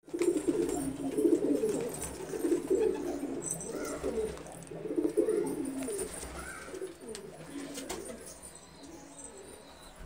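Domestic pigeons cooing: a run of low, repeated coos, loudest in the first half and dying away toward the end.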